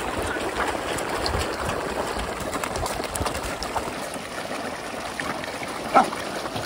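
A dense shoal of carp churning at the water surface: steady wet splashing and gurgling, with small slaps and clicks as the fish jostle and gulp at the surface. A single short, loud sharp sound cuts in about six seconds in.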